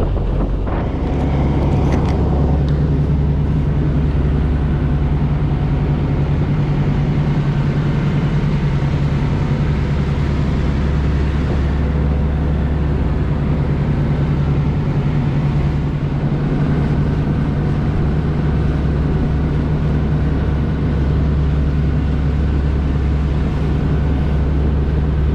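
Small fishing boat's engine running steadily while under way, a constant low drone with water and wind noise over it.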